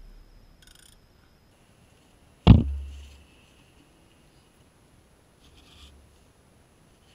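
Hand tools working the coolant drain screw on a BMW M54 engine block: one sharp knock about two and a half seconds in, then a fainter clunk near six seconds.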